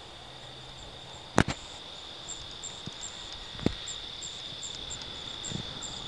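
Field ambience with a steady high insect drone and faint repeating high chirps, broken by a few sharp clicks or knocks, the loudest about a second and a half in. No engine is running: the model is gliding in deadstick after its engine quit.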